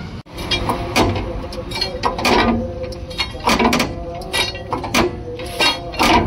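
Metal tools clanking and knocking on a truck wheel during tyre repair: about a dozen irregular strikes, each ringing briefly.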